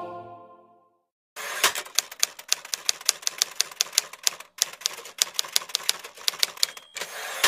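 Typewriter key-strike sound effect: a fast run of sharp clicks, several a second, in three stretches with short breaks, timed to text typing on screen. Background music fades out in the first second.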